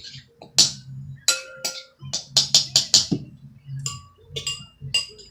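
A utensil clinking and tapping against a glass or dish while slime is mixed: a quick, irregular run of sharp clicks, some ringing briefly.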